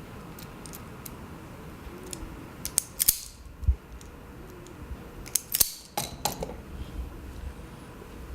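Scissors snipping electrical wire, a few sharp metallic clicks in two clusters, about three and about five and a half seconds in, with a dull knock between them.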